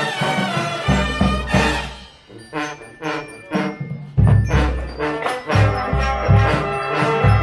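Drum and bugle corps playing: brass bugles in full chords over bass drums and snare drumline. The sound drops back to sparse drum strokes about two seconds in, and the full band comes back in loudly about four seconds in.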